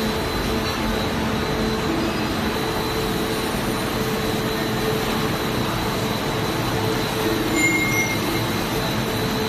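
Industrial machinery running steadily: a dense, even noise with a steady hum and a high whine through it, and a brief squeal near the end.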